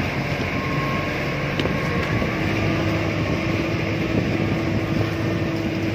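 Motorized outrigger boat (bangka) engine running steadily while underway, with water and wind noise; a steady higher hum joins about halfway through.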